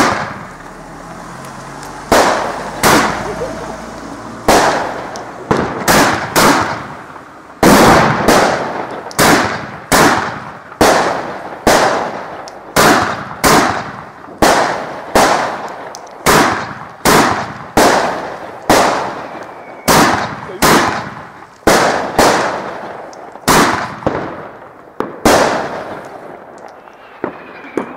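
Fireworks firing a long, evenly paced run of loud bangs, a little over one a second, each dying away quickly.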